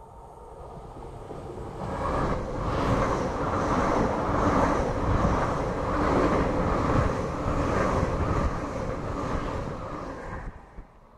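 Hitachi Class 800-series intercity train passing at speed: a rush of sound that builds as it approaches, then steady wheel-and-rail noise with a regular beat as the carriages go by, cut off abruptly near the end.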